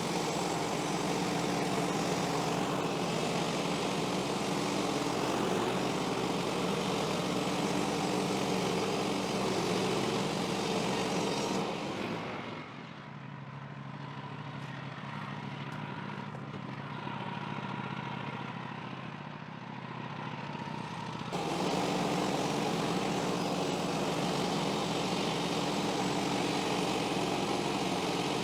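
Woodland Mills HM130MAX portable band sawmill's gas engine running steadily, with a quieter, duller stretch of about ten seconds in the middle that begins and ends abruptly.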